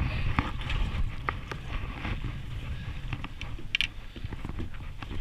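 Wind rumbling on the microphone aboard a boat at sea, with scattered light knocks and clicks and one brief sharper sound near the end.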